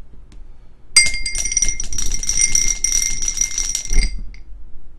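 Several dice shaken and rattling against the inside of a pint glass for about three seconds, the glass ringing with each hit, ending with a knock about four seconds in.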